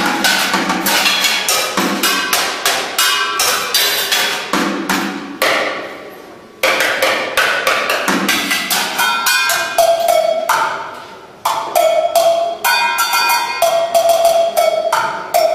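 Rapid drumming with sticks on a kit built from found objects: plastic tubs and buckets, stacked metal plates and bowls, cymbals and a bell. Fast runs of hits with ringing metallic tones, broken by short pauses about six and eleven seconds in where the ring dies away.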